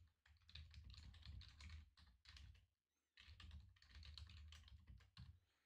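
Faint typing on a computer keyboard: quick runs of key clicks, with a short pause a little past halfway.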